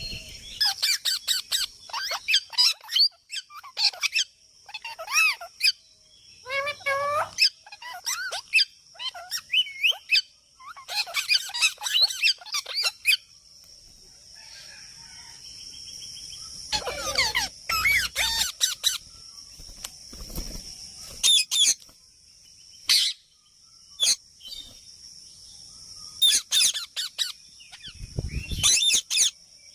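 Parrot calling: clusters of short chirps and squawks that bend up and down in pitch, coming in quick runs with brief pauses between. A steady high-pitched hiss-like tone sits underneath from about halfway through.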